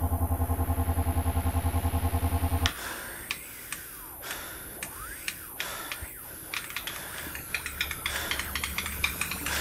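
A low, rapidly pulsing hum at about ten pulses a second cuts off suddenly about two and a half seconds in. Scattered sharp clicks and ticks follow, growing denser toward the end.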